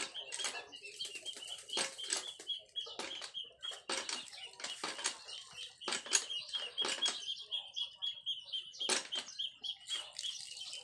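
Water splashing and pattering onto a bicycle's frame and wheel as it is washed, poured from a dipper and rubbed by hand, in irregular bursts. A steady high-pitched trill sounds behind it.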